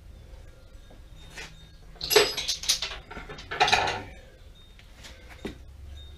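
Metal tools and machine parts clinking and clattering against each other in two short bursts, about two seconds in and again around three and a half seconds in, with a few lighter ticks after.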